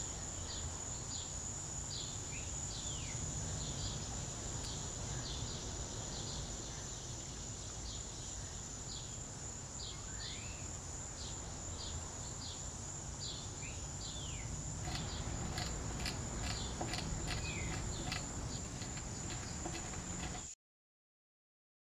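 Outdoor ambience: a steady high-pitched insect drone with scattered bird chirps and a few short rising calls over a low background rumble, the chirping growing busier past the middle. It cuts off abruptly about a second and a half before the end.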